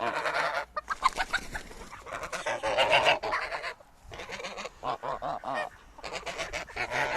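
Domestic geese honking over and over, their calls overlapping in loud bouts with short pauses between.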